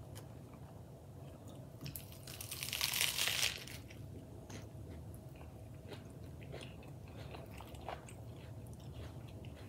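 A crisp crunch as teeth bite into a burger wrapped in iceberg lettuce, lasting about a second, a little under three seconds in. Quiet chewing with small mouth clicks follows.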